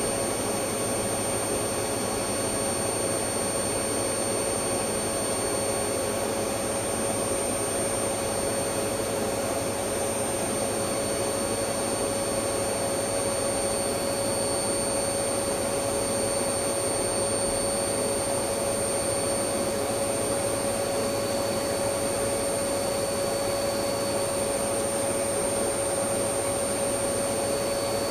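Electric vacuum cleaner running steadily: an even rushing hum of its motor and airflow with a steady whine, no changes in pitch or level.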